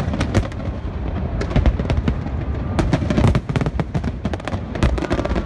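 Fireworks display: aerial shells bursting in quick, irregular succession, many sharp bangs and crackles over a steady low rumble, with thicker clusters about one and a half, three and five seconds in.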